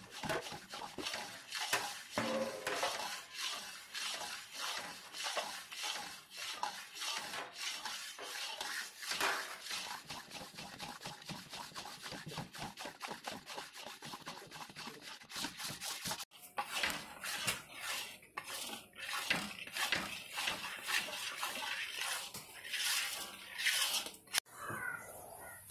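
Metal whisk beating a wet milk-powder batter in an iron kadai: fast, repeated clinks and scrapes against the pan with a wet slapping of the batter, with a brief break about two-thirds of the way through.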